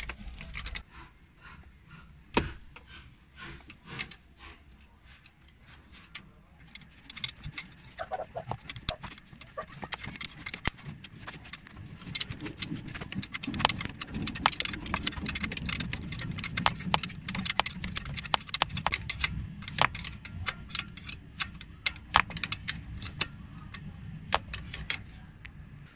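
A hand wrench working a 12 mm bolt loose on the engine, to slacken the serpentine belt: a long, irregular run of rapid metallic clicks and rattles, thickest in the second half.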